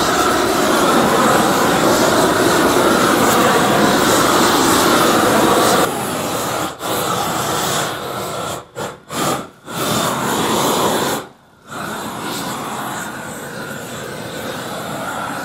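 Propane roofing torch burning with a steady rushing flame noise as it heats a roll of torch-down membrane. It drops in level about six seconds in and breaks off briefly several times before going on more quietly.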